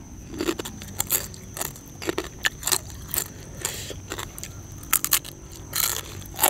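Grilled rice-field crab shells being bitten and chewed, crunching with a string of irregular sharp cracks.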